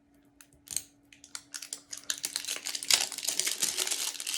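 Plastic blind-bag toy package being torn open at its notch and handled, crinkling. Scattered crackles at first, then dense, fast crinkling from about a second and a half in.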